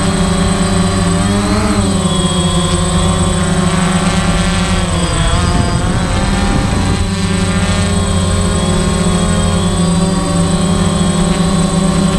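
Quadcopter drone's propellers and motors whining steadily in flight. The pitch dips and comes back up briefly about a second and a half in, and dips more deeply for a couple of seconds around the middle, as the throttle changes.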